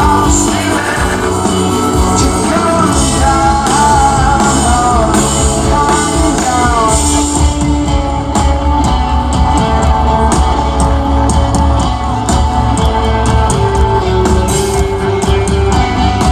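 Live rock band playing with a lead vocal for the first seven seconds or so; after that the instruments carry on without singing over a steady drum beat.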